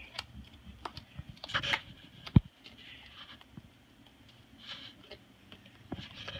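Moluccan cockatoo chewing and shredding a sugarcane stalk with its beak: irregular crunches, scrapes and clicks of the fibrous cane, with one sharp click about two and a half seconds in.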